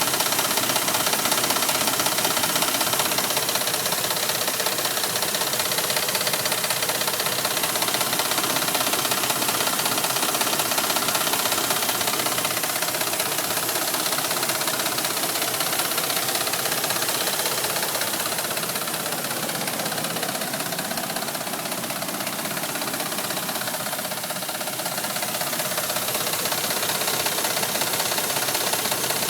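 Gasoline engine of a Dodge Ram 1500 pickup running steadily with a fast, horrible ticking that sounds like a diesel truck. It is a little quieter for a few seconds in the second half.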